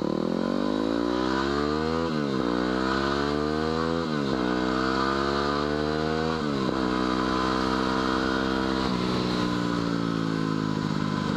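2010 Yamaha WR250R's 250 cc single-cylinder four-stroke engine accelerating through the gears, its pitch climbing and dropping sharply at three upshifts about two, four and six and a half seconds in, then holding steady at cruising speed. Wind noise rushes over the helmet microphone throughout.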